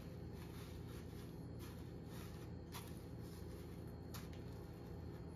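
Faint rustling and scraping of a meatball being rolled by hand in panko breadcrumbs on a plate, with a few soft ticks.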